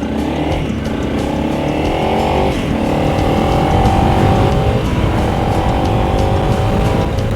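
Honda CRF 300 Rally's single-cylinder engine accelerating through the gears, the pitch rising steadily and dropping at two upshifts, about two and a half and five seconds in.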